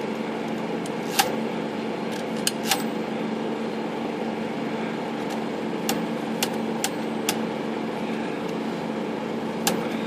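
Smith Corona Skyriter portable typewriter's carriage and margin-stop mechanism being worked by hand, giving about eight sharp metallic clicks at irregular intervals as the left margin is tested; the carriage still slips past the stop (overbanking). A steady hum runs underneath.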